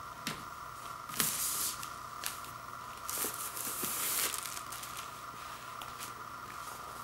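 Clear plastic outer sleeve rustling and crinkling as a vinyl LP jacket is slid out of it, in two bursts, one about a second in and a longer one about three seconds in, with a few light handling clicks. A steady faint background hiss runs underneath.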